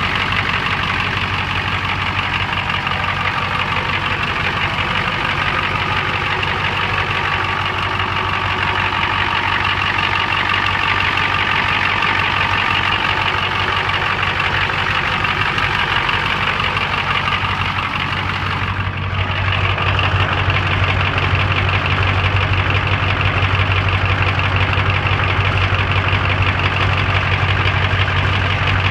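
Ford 7.3 IDI V8 diesel engine idling roughly, a rough idle put down to a leaking fuel return line. About two-thirds of the way through, the low engine note grows louder.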